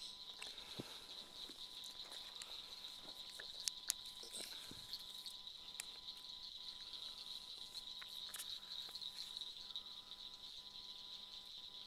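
A steady high-pitched night chorus of calling creatures, with a few sharp clicks and short rustling knocks about four seconds in as the rifle and scope are handled.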